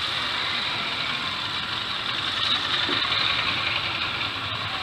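Motorcycle engines running at low revs as bikes ride slowly past at close range, one after another, swelling a little about halfway through.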